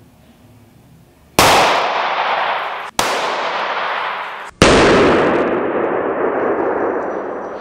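Three gunshots about a second and a half apart, a handgun fired into a one-way ballistic glass window in a vehicle door. Each is a sharp crack with a long echoing tail that breaks off abruptly.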